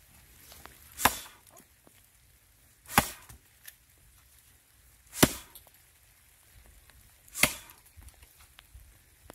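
An axe chopping into a log: four sharp strikes, about two seconds apart.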